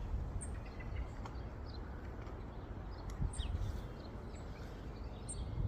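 Small wild birds giving short, high chirps every second or so over a low rumble of wind.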